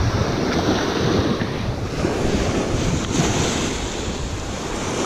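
Wind buffeting the microphone in a steady low rumble, with waves washing on the shore behind it.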